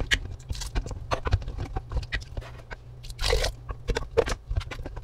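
A spoon stirring chunky canned tomatoes with sautéed onion in a stainless-steel pressure-cooker pot. It makes irregular wet squelches and small clicks of the spoon against the pot, with a couple of louder sloshes about three and four seconds in.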